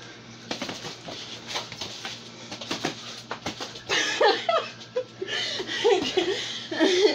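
Sparring punches: a scatter of light slaps and thuds, then from about four seconds in, loud high wavering squeals and cries.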